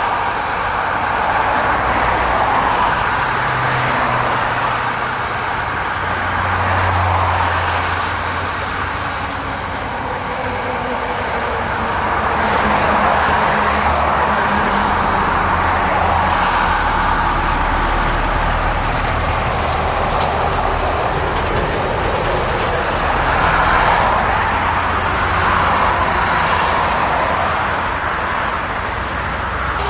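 Dual-carriageway traffic, lorries and cars passing one after another, their tyre roar swelling and fading every few seconds over the low hum of lorry engines.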